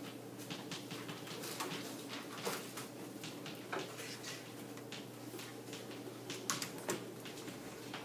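Chalk on a chalkboard as words are written: short, irregular taps and scrapes, a few of them sharper, over a steady low hum.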